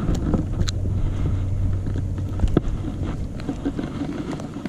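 Small boat's motor running at low speed with a steady low hum, wind buffeting the microphone, and scattered small clicks and knocks on board.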